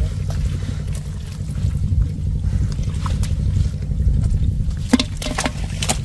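Water sloshing and trickling over a steady low rumble, with a few short splashes or knocks, the sharpest about five seconds in.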